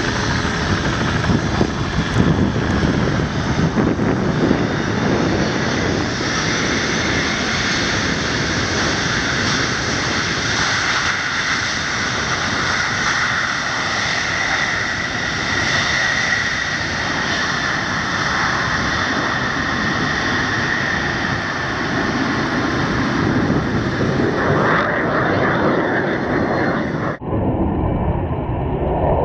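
Jet engines of the Boeing 747 Shuttle Carrier Aircraft running as it rolls along the runway: a loud, steady roar with a faint high whine in it. Near the end the sound turns suddenly duller.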